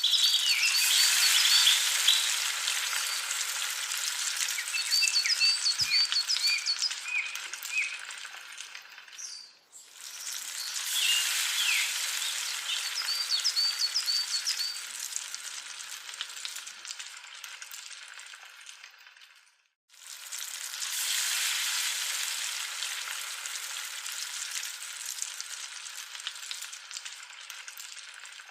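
Hot oil sizzling as potato chips fry in a miniature pan, heard in three takes that each start loud and then fade.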